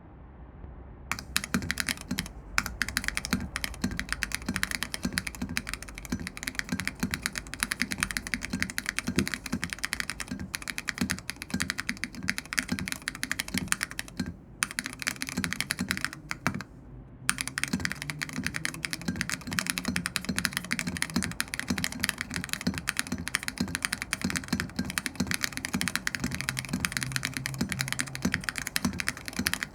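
Fast, continuous typing on a custom 60% mechanical keyboard (Thermal SEQ2 kit, polished aluminum plate, lubed and filmed Zaku linear switches, KAT keycaps, brass spacebar). A rapid clatter of keystrokes starts about a second in, with a couple of brief pauses midway.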